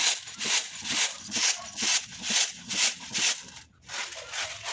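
Rice grains being winnowed on a woven bamboo winnowing tray: rhythmic swishing and rattling as the grain is tossed and shaken, about two strokes a second. There is a short pause near the end, then it goes on more softly.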